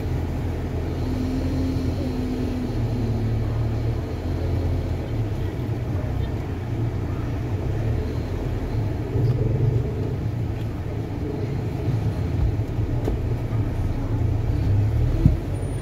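Car cabin noise while driving: a steady low engine and road rumble, with a single short knock near the end.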